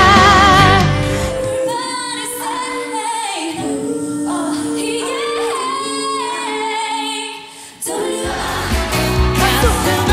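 Female pop singers belting high notes over band accompaniment, in short live clips cut back to back. A belted note with wide vibrato ends about a second in. Next come long held belted notes around a high C5 over a lighter backing. After a brief dip near eight seconds, a fuller band with drums comes in under another singer.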